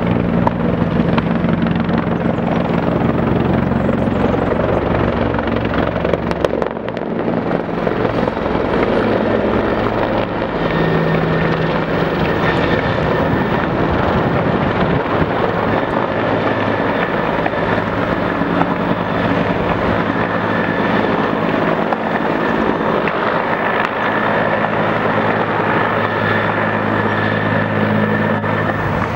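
Yellow firefighting helicopter flying low with a water bucket slung beneath it: loud, steady rotor and engine noise, its low pitch shifting slightly about six seconds in.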